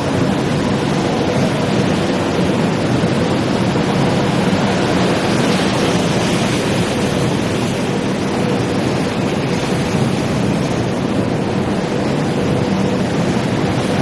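China Railway electric multiple unit running past along the station tracks: a steady rumble of wheels and running gear with a faint steady hum underneath.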